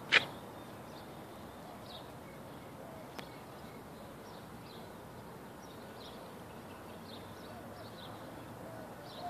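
Small birds chirping with short, high calls scattered throughout, over a faint steady outdoor background. A sharp click just after the start is the loudest sound, with a fainter click about three seconds in.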